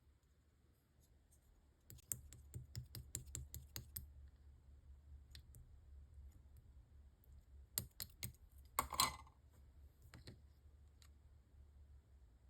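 Purple slime being pressed and worked by hand, making quick runs of small sticky clicks and pops, with a longer crackling squish about nine seconds in, over a faint low hum.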